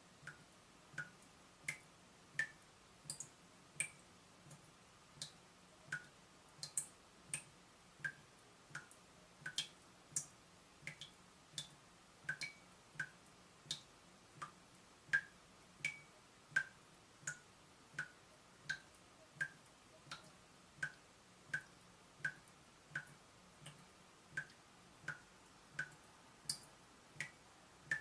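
Water drops falling from a leaking tap, each landing as a short plink, at a steady rate of about one every three-quarters of a second.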